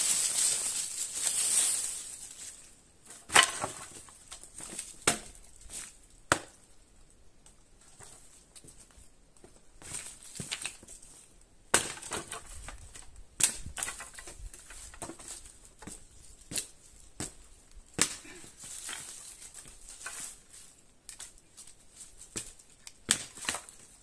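Irregular sharp cracks and knocks of wood being handled and broken, about fifteen spread unevenly, with crunching and rustling between them.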